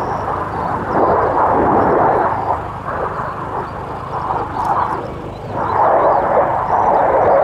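Jet roar of an F/A-18C Hornet flying overhead, from its twin General Electric F404 turbofans; it swells about a second in, eases around five seconds and swells again near six seconds.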